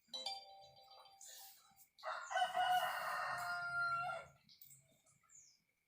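Two rooster crows: a fainter one, then a louder, longer one about two seconds in.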